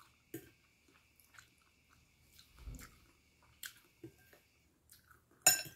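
A person chewing food close to the microphone: soft, scattered mouth clicks and smacks. A single sharp clink near the end, cutlery striking a bowl.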